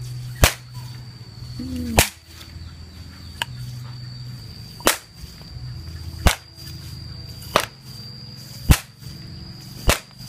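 A bamboo pop gun firing fruit-ball pellets (Litsea cubeba berries): about eight sharp pops, one roughly every second and a half, the third one weaker.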